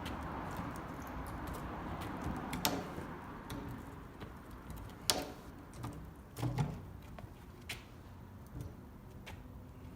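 Steady sawmill machine noise that dies away over the first few seconds, then several separate sharp knocks and clacks of timber being handled.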